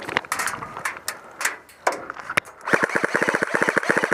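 Airsoft rifle firing a long full-auto burst, about fourteen shots a second, starting about two and a half seconds in. Before it come scattered single sharp cracks of shots and impacts.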